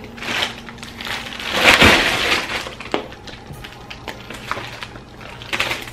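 Clear plastic accessory bags crinkling and rustling as they are handled, loudest for about a second around two seconds in, with a sharp click about three seconds in.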